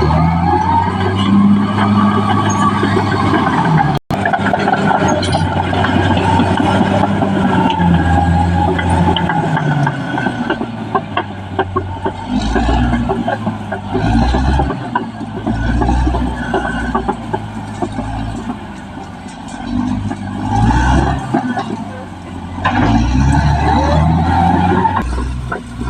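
Caterpillar D6R XL bulldozer's diesel engine working under changing load, its pitch rising and falling every few seconds, with clanks and rattles throughout. The sound drops out for an instant about four seconds in.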